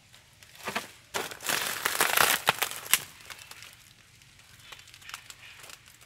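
Dry bamboo leaf litter crackling and crumpling, with a loud run of crackles lasting about two seconds, starting about a second in, then a few fainter crackles near the end.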